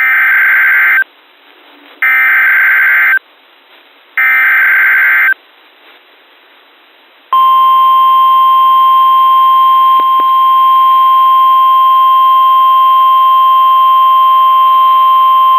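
Three Emergency Alert System SAME header data bursts, each a harsh buzzing warble about a second long, a second apart. About two seconds later the steady single-pitch NOAA Weather Radio 1050 Hz warning alarm tone sounds for about nine seconds. Together they signal the start of a new weather warning.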